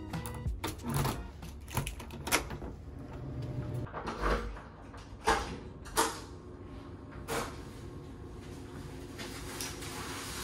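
Keys rattling and a key working a door's deadbolt lock, with quick clicks, followed by several separate knocks and thumps as the door is opened and things are handled.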